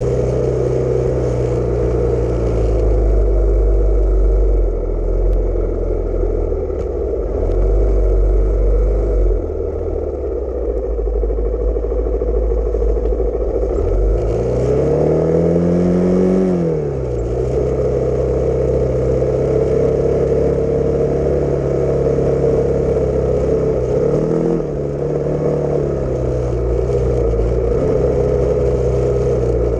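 Honda XR600's single-cylinder four-stroke engine running steadily under way, heard from a camera mounted on the motorcycle. About halfway through the engine revs up and back down, and near the end it briefly dips and picks up again.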